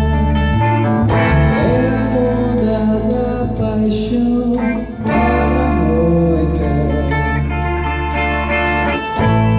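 Rock band playing an instrumental passage: electric guitar with bending notes over bass and a steady drum kit beat, the low end dropping out briefly twice.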